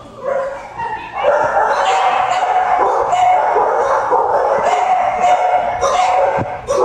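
Many shelter dogs barking and yelping together in the kennels, a continuous din that starts about a second in and dips briefly near the end.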